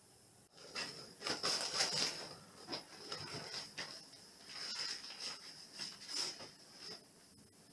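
Three-way fabric cat tunnel rustling and crinkling in irregular bursts as a cat scrambles and dives through it, with paws scuffling. The rustling starts about half a second in and stops shortly before the end.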